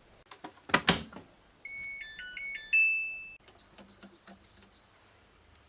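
Samsung Eco Bubble washing machine's control panel: a knock, then a short electronic power-on tune of stepped notes, followed by five short, evenly spaced high button beeps as the cycle is selected.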